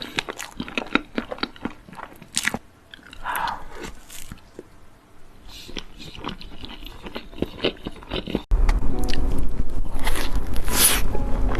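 Close-miked biting and chewing of cake, with crunchy bites and many small chewing clicks. About eight and a half seconds in, it cuts abruptly to a louder passage with a steady low hum and a few held tones under more chewing.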